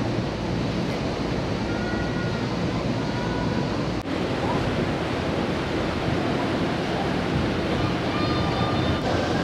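Steady rush of sea water and wind beside the ferry Ogasawara Maru under way, with wind buffeting the microphone.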